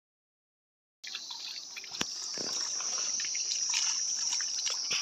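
Silence for about a second, then water from a garden hose trickling and splashing over a concrete grave slab as a hand rubs the stone, with a few light knocks. A steady high chirring of insects runs underneath.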